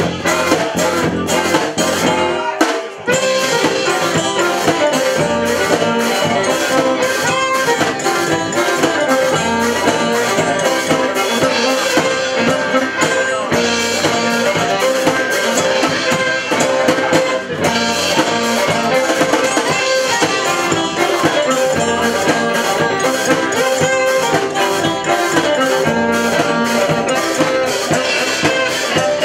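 Live folk band playing an instrumental passage: fiddle, banjo, acoustic guitar, bass and drums, with a steady beat.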